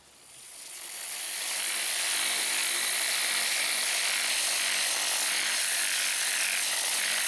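Porter-Cable dual-action (DA) sander with 80-grit sandpaper sanding down cured fiberglass mat, a steady abrasive hiss that builds up over the first second or two and then holds level.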